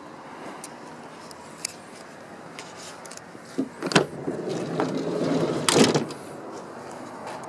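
Rear sliding door of a people carrier being opened: the handle and latch click, the door rumbles back along its track for about two seconds, and it stops with a loud knock at the end of its travel.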